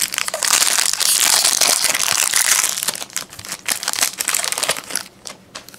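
Foil wrapper of a trading card pack crinkling loudly as it is opened and pulled off the cards. It thins after about three seconds into a few lighter crinkles and ticks.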